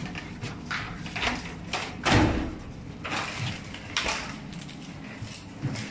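Scattered knocks and thumps with some rustling, the loudest thump about two seconds in.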